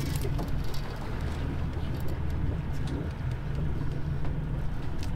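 A boat's engine drones steadily and low while trolling, with a few faint ticks over it.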